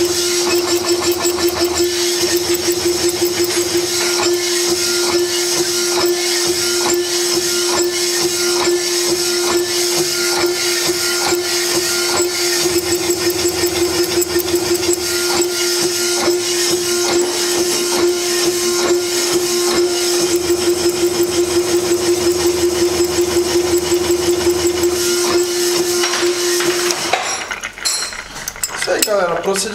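Honing of a VW Beetle cylinder liner: the abrasive stones of the hone scrape inside the clamped liner over the steady hum of the honing machine's drive, with a fast pulsing rhythm. It stops near the end.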